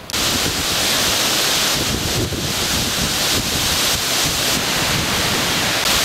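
Strong gusting wind blowing across the microphone: a loud, steady rush of noise.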